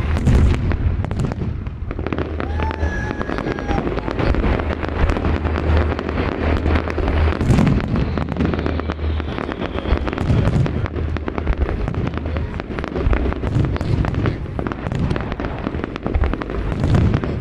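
Fireworks display: aerial shells bursting in quick succession, a continuous barrage of bangs and dense crackling with no pause.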